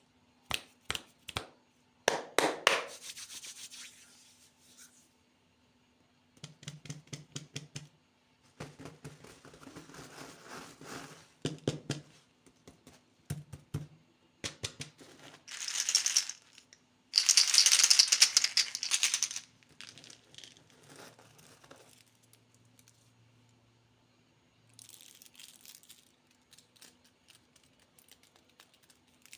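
Candy packaging being handled and opened. Plastic wrappers crinkle and tear in several bursts between sharp clicks and rattles, with the loudest, longest rustle a little past the middle.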